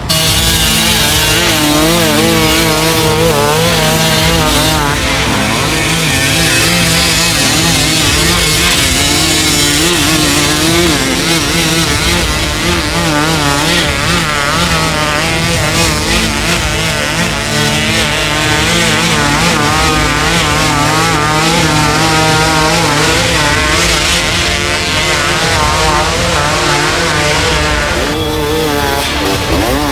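Dirt bike engines revving hard, their pitch rising and falling quickly and constantly as riders work their way up a rough forest trail.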